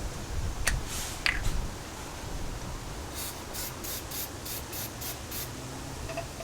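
Aerosol can of brake cleaner sprayed in a series of about eight short hissing bursts, roughly three a second, starting about three seconds in, after a few light clicks and a brief hiss in the first second and a half.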